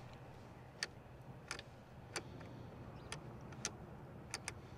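About seven sharp, irregularly spaced clicks as the ignition and handlebar switches of a Harley-Davidson touring bike are worked. Nothing else answers, and no fuel pump priming is heard: the battery is dead.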